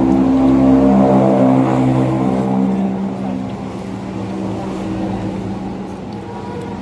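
A motor vehicle's engine running close by, loudest about a second in and then fading away over the next few seconds.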